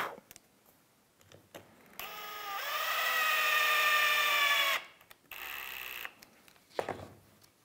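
Drill-driver driving a wood screw into a pine block. The motor whines for about three seconds, rising in pitch as it spins up and then holding steady. A brief second burst about a second later sets the screw, and there are a few handling knocks.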